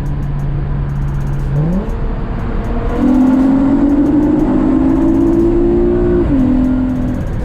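Acura TL's 3.7-litre V6 pulling under acceleration, heard from the cabin. The engine note rises about a second and a half in, gets louder and climbs steadily from about three seconds, then drops in pitch a little after six seconds as the automatic gearbox shifts up.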